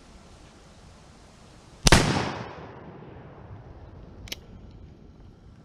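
One shot from an 1858 Remington replica black-powder percussion revolver, about two seconds in, with a short echoing tail. A short click follows about two seconds later.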